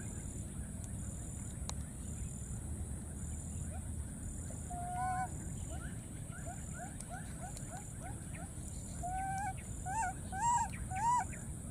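Baby macaque calling. There is one held coo about halfway through, then a run of short rising chirps at about three a second, and four louder arching coos near the end.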